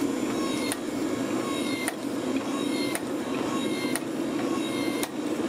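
Hydraulic forging press built from a 7.5-ton log splitter running steadily as its ram squeezes a hot steel billet, with a sharp, ringing tick about once a second.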